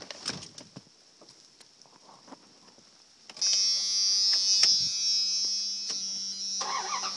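Light clicks and handling noise, then about three seconds in a steady electric buzz starts and holds level until shortly before the end.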